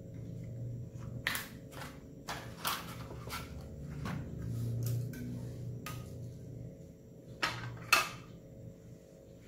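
Irregular clacks and knocks of a Starco mini digital scale and its clear plastic case being handled, set down on a glass tabletop and fitted together, with two louder knocks close together near the end, over a low steady hum.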